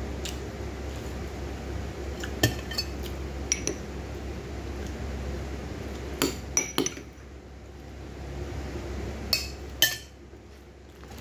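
Metal spoon clinking against a plate, in three short clusters of sharp clinks, over a steady low background hum.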